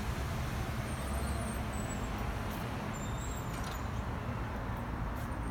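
Street traffic noise: a steady rumble of vehicles passing on the street.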